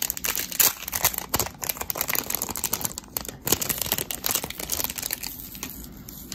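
Packaging crinkling and rustling as a nail-art charm wheel is unwrapped by hand, with dense irregular crackles that thin out near the end.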